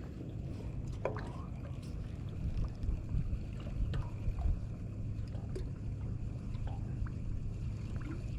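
Low, steady rumble of water and wind around a small boat, with a few faint scattered clicks and knocks.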